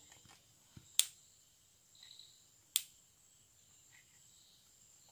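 Two sharp electric sparking snaps, about a second and three quarters apart, from a fan capacitor discharging across its own leads after a moment's charge from the mains. A crisp pop like this is the sign that the capacitor stores charge and is good.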